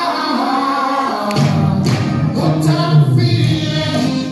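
Music with layered choir-like singing voices; a deep bass part comes in about a second in, and the music fades out near the end.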